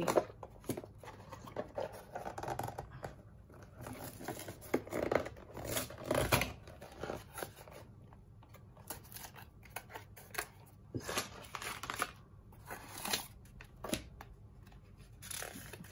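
A small cardboard box opened by hand: the end flap prised open, an inner cardboard tray slid out, and a plastic bag of pieces and a paper sheet handled. It makes a run of scattered scrapes, taps and rustles, with a louder knock about six seconds in.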